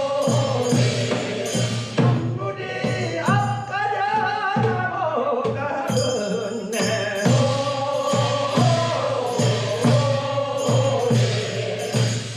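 Korean funeral bier-carriers' song (sangyeo sori): men singing in chorus over a drum that beats a steady pulse about one and a half times a second.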